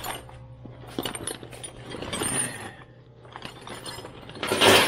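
Metal hand tools clinking and clattering, with scattered sharp clicks and a loud harsh clatter near the end.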